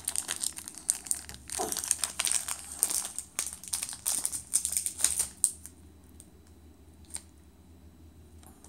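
Foil wrapper of a Pokémon trading-card booster pack crinkling as it is handled, in quick crackly bursts that die away about two-thirds of the way through, followed by a single small click.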